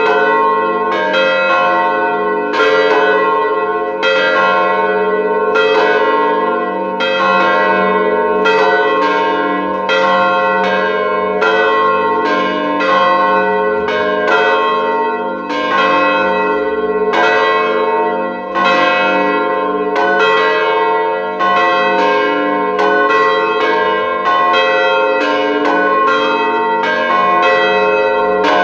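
Three swinging church bells of 900, 500 and 350 kg, tuned to F, A-sharp and C and cast at the Mała Panew foundry in Ozimek, ringing together in an open steel bell tower. Their strikes come about one or two a second in an uneven overlapping pattern, each note ringing on into the next.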